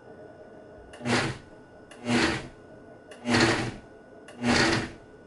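Vitamix A3500 blender with its 8-ounce bowl pulsing chopped vegetables for salsa: four short bursts of the motor and blades, about one a second.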